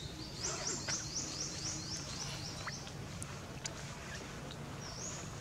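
A bird calling: a quick run of about a dozen short, high, rising notes, about five a second, over the first two and a half seconds, and one more such note near the end, over a steady low outdoor background hum.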